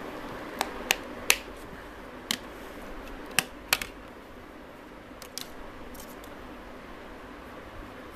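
Plastic snap-on back cover of a Samsung Galaxy S4 being prised off by hand, its clips letting go in a string of sharp plastic clicks, the loudest about a second in.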